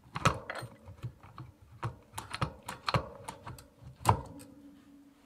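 Irregular sharp metallic clicks and clacks as the bicycle wheel and the opened internal-gear hub are handled. A louder knock about four seconds in is followed by a short low ringing.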